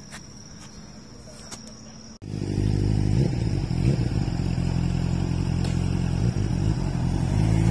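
Steady high insect whine with a few clicks, broken off by a sudden cut about two seconds in. Then a motor vehicle engine runs loudly, its pitch rising and falling.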